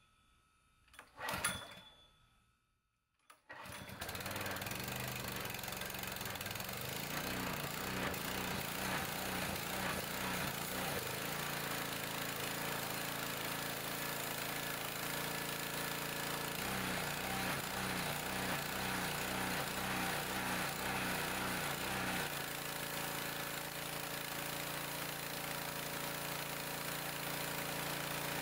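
Small gasoline engine of a Homelite pressure washer pull-started, catching about three and a half seconds in, just after its rusty fuel tank and carburetor were repaired, then running steadily with the high-pressure spray from the wand. Its note pulses rhythmically for several seconds past the middle.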